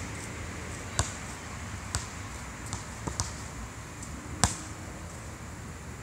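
A basketball bouncing on an outdoor asphalt court: a handful of separate sharp bounces roughly a second apart, the loudest about four and a half seconds in.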